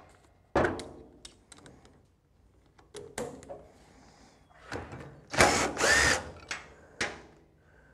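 Cordless DeWalt drill/driver run in several short bursts, backing out the 7/16 in bolts that hold a wiper motor to its bracket. The longest and loudest burst comes just past the middle, its pitch rising and falling as the motor speeds up and slows.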